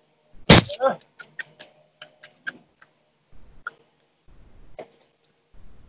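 A loud sharp click about half a second in, then a quick run of short sharp ticks, about eight over the next two seconds, fading into faint low rumble.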